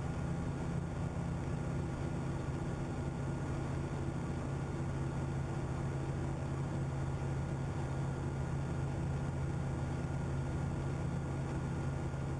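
Steady, unchanging low engine drone with a constant hiss over it and several held tones; it does not rise or fall in pitch.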